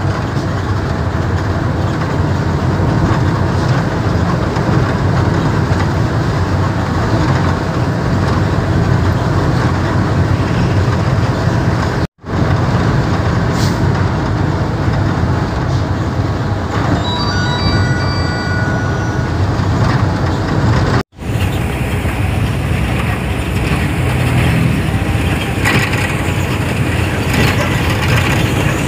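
Steady engine and road noise of a sugarcane truck heard from inside its cab while it drives. The sound drops out for an instant twice, about a third and two-thirds of the way through, and a few short high tones sound just before the second dropout.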